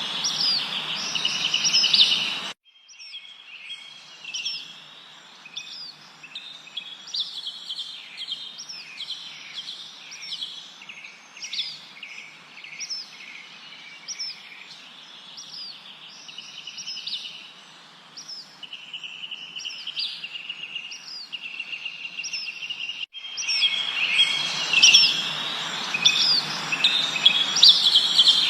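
A chorus of small songbirds chirping, with many short high calls overlapping over a steady hiss of background noise. The sound drops abruptly to a quieter stretch of chirps about two and a half seconds in, then returns just as abruptly, louder and busier, a few seconds before the end.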